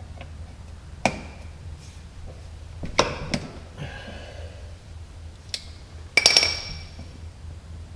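Metal clinks of a wrench on a tractor's front-axle drain plug as it is loosened: a few separate sharp clicks, then a brighter, ringing metal clink about six seconds in.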